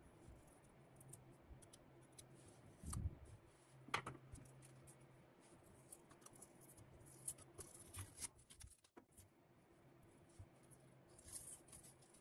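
Near silence with faint scratching and small clicks as a fine pointed pick scrapes stray paint from the edges of a freshly painted drill press vise, then paint-covered tape is peeled off its jaw. A light knock about 3 s in and a sharper click about a second later are the loudest moments.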